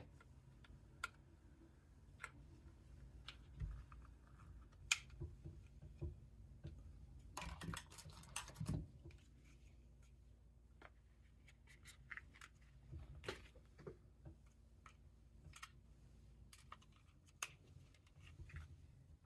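Faint, scattered small clicks and scrapes of airsoft pistol parts being handled and fitted by hand, with a denser scratchy rattle of several quick clicks about eight seconds in.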